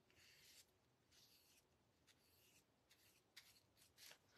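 Near silence with faint rubbing of a paintbrush on deli paper: three soft strokes, each about half a second long, then a few light taps near the end.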